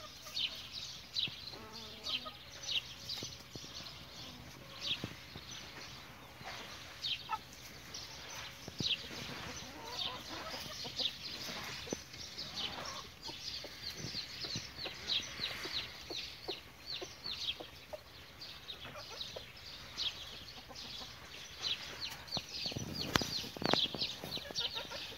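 Chickens clucking amid a steady chatter of short, high bird chirps, with a brief knock or rustle near the end.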